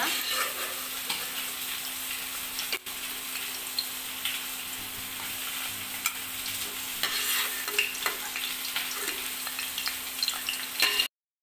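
Fish-roe pakoras deep-frying in hot oil, a steady sizzle with scattered crackles, while a slotted spoon turns them and lifts them out of the pan.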